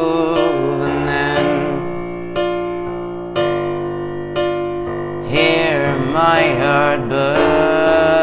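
Upright piano playing a slow ballad accompaniment, chords struck about once a second and left to ring down. About five seconds in a wavering melody line joins above the piano and settles into a long held note near the end.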